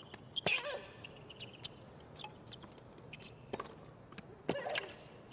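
Tennis rally on a hard court: the ball is struck by rackets and bounces, sharp pops a second or so apart. The loudest pops come about half a second in and near the end, over a hushed crowd.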